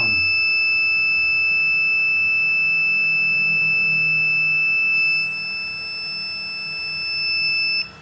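Ender 3D printer's buzzer giving one long, continuous high-pitched beep on being switched on. It dips in level about five seconds in and cuts off sharply just before the end. The beep is a fault the owner traces to the plugged-in thermostat wires.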